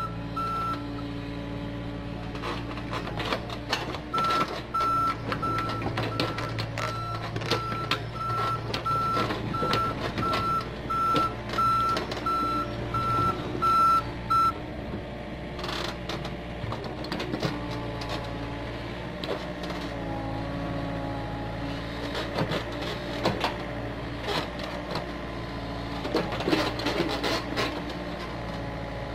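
Komatsu PC45 mini excavator's diesel engine running under hydraulic load, with a travel alarm beeping about twice a second from about four seconds in until about halfway through, while the machine tracks forward. Scraping and knocking of the bucket in soil runs throughout.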